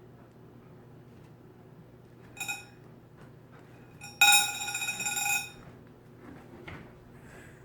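A bright ringing clink heard twice: a short one about two seconds in, then a louder one held for over a second, from the ring the pet bird is playing with.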